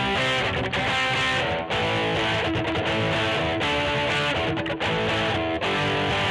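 Electric guitar played through a Peavey Vypyr VIP 2 modelling amplifier, notes and chords played without a break.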